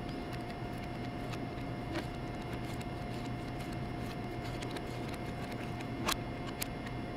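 Steady hum with a thin held tone, and scattered light clicks, two sharper ones about six seconds in.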